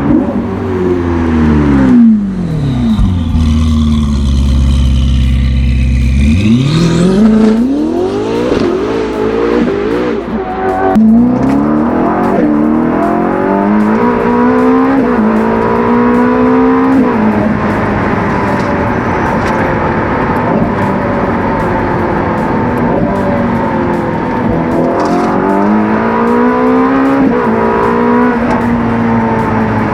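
Ferrari SF90 XX twin-turbo V8 through a near straight-piped Ryft titanium exhaust, being driven hard. The revs fall away, hold low, then climb again with a few quick blips. The engine then pulls up through the gears in stepped rises and settles into steady running, with one more climb near the end.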